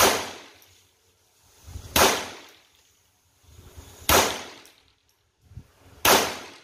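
Four shots from a Ruger 10/22 semi-automatic .22 rifle firing CCI Standard Velocity .22 LR, spaced about two seconds apart. Each is a sharp crack with a short echoing tail.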